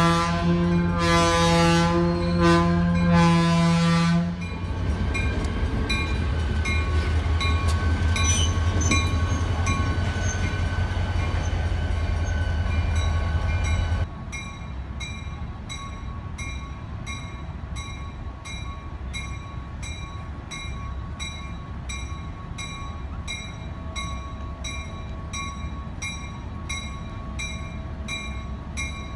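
Diesel locomotive horn sounding a chord for about four seconds, then cutting off, leaving the low rumble of a diesel engine. About halfway through the sound drops to a quieter idling locomotive with a bell ringing steadily, a little over once a second.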